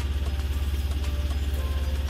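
A vehicle engine idling with a steady, rapid low throb, with background music over it.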